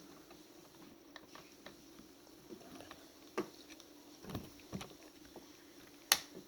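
Scattered light clicks and taps of small plastic and metal parts being handled and fitted together, as the bearings and housing of an RC truck's rear differential are assembled by hand. One sharp, louder click comes a little before the end.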